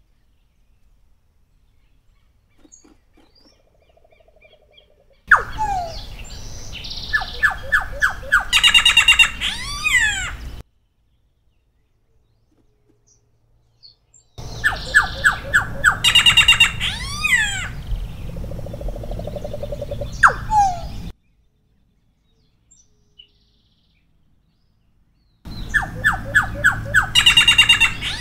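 Solitary black cacique singing: three song bouts, each a quick run of repeated clear notes, a fast high trill and a few sweeping slurred whistles, separated by silent gaps of about four seconds. The first bout starts about five seconds in and the third near the end.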